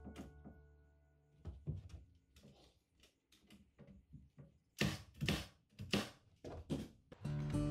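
Irregular knocks and clunks, with a cluster of sharp, loud ones about five seconds in. Music fades out at the start and comes back near the end.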